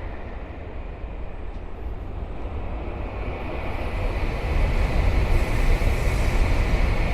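Freight train running past over a level crossing: a steady rumble of wheels on the rails, growing louder about four and a half seconds in.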